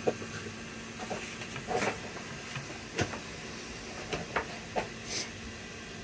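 Steady background hiss with a faint low hum, broken by a handful of small, faint clicks and taps, the sharpest about three seconds in.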